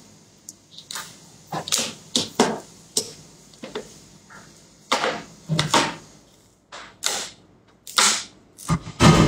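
Swallowing water in big gulps from a plastic water bottle: a string of short gulps about one or two a second, with brief pauses. A louder sound comes just before the end.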